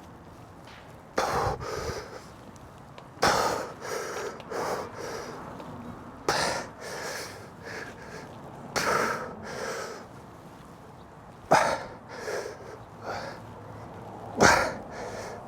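A person breathing hard: short, forceful exhales and gasps, some in quick pairs, every second or two, as of someone straining through exercise reps.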